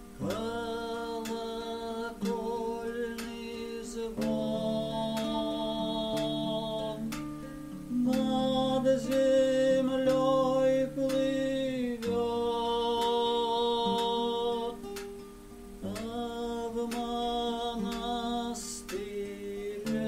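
A man sings a slow song to his own strummed nylon-string classical guitar. He holds long notes with vibrato in phrases of about four seconds, with short breaks between them.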